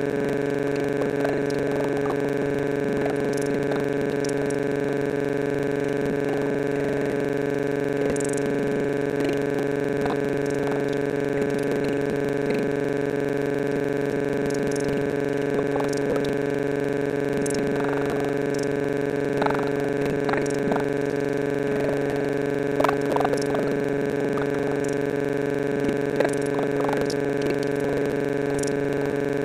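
A loud, steady electronic drone of several fixed pitches that never changes, with a woman's voice faint beneath it.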